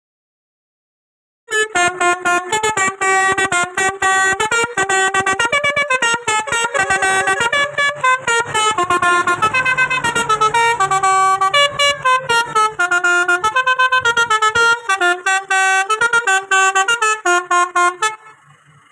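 A van's horn sounding a fast run of short, stepping notes like a tune, in choppy pulses. It starts about a second and a half in and stops just before the end.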